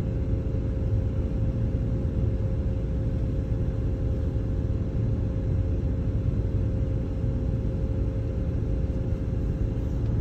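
Steady low rumble of a vehicle's engine idling while stopped, heard from inside the cabin, with a constant hum over it.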